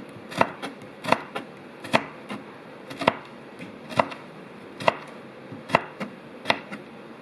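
Knife chopping on a cutting board: sharp strokes, one or two a second, at an uneven pace.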